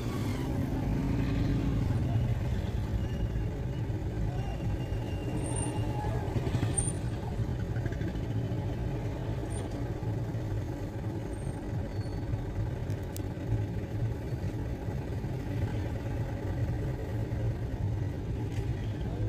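Steady low rumble of motor vehicles on a busy city road, with a few faint short high squeals and one sharp click about two-thirds of the way through.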